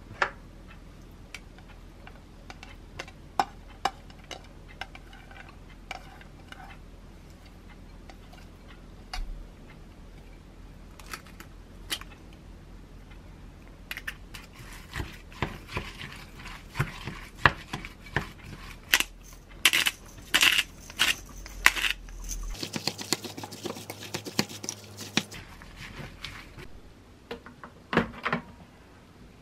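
Wooden chopsticks tapping and scraping against a glass mixing bowl as shredded cabbage and egg are stirred: scattered clicks at first, then dense, quick clattering about halfway through. Near the end, a couple of sharper clicks as the plastic lid of an electric waffle maker is handled and opened.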